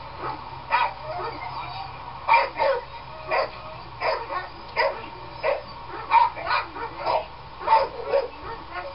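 A dog yipping and barking in short, high calls, one or two a second.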